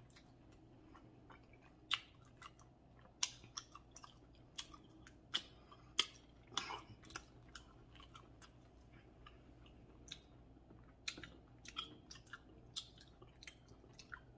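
Close-up eating sounds of seafood in butter sauce: chewing with irregular wet smacks and sharp mouth clicks, a few spaced seconds apart and some in quick clusters, over a faint low hum.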